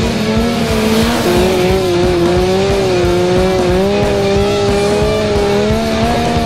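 Motorcycle engine held at high revs, its pitch wavering slightly, while the bike slides sideways with its rear tyre squealing on the asphalt.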